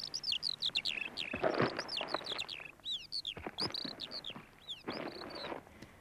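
Small birds chirping, many quick rising and falling calls, with a couple of brief rustling swishes underneath.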